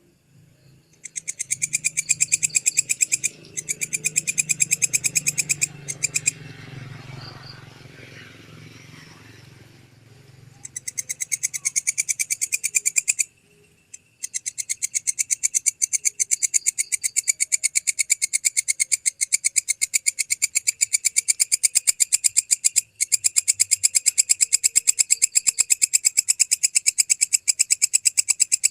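Walang kecek, a singing grasshopper-like insect, calling in fast, even trains of high, rasping chirps. It sings in several bursts with short breaks in the first half, then in one long run through the second half, over a low hum in the first few seconds.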